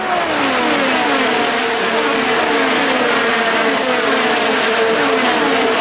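IndyCar twin-turbo V6 engines going by one after another in a line under the yellow flag, each note falling in pitch as the car passes, with one steady engine note held underneath.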